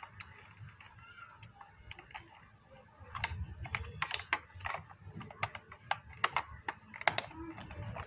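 Plastic clicks and taps from hands fitting the battery pack into the underside of a toy remote-control truck and closing the battery cover. A few scattered clicks at first, then a quick run of sharp clicks from about three seconds in.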